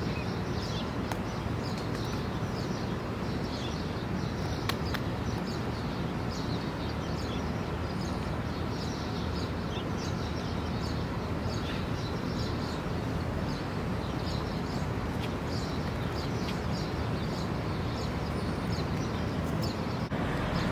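Small birds chirping over and over over a steady low hum of street noise.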